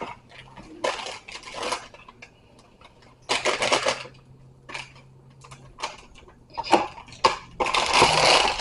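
Plastic packaging of a cornbread mix crinkling and tearing in a few short bursts, with scattered clicks and taps in between.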